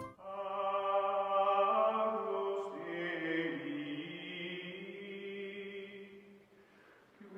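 Background music: a choir-like chant of long held notes sung together, fading out about six seconds in.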